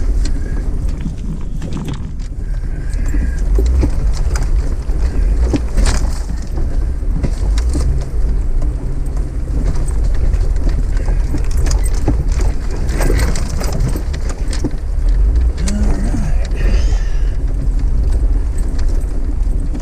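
Off-road vehicle driving slowly over a rocky dirt trail: a steady low engine rumble with frequent knocks and rattles as the body and suspension jolt over rocks.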